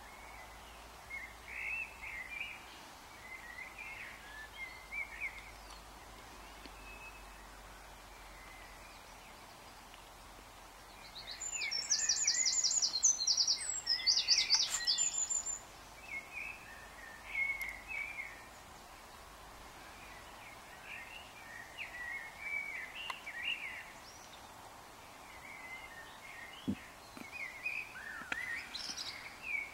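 Songbirds singing: short chirping phrases throughout, and about twelve seconds in a loud, rapid, high-pitched trilling song lasting around four seconds.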